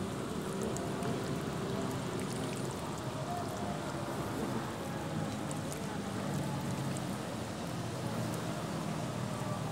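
Water streaming, splashing and dripping off a fine-mesh lift net as it is hauled up out of the pond, over a steady low engine hum.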